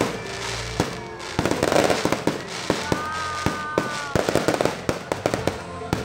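Aerial fireworks bursting overhead: a rapid run of sharp bangs and dense crackling from the shells. A brief steady tone is held for about a second near the middle.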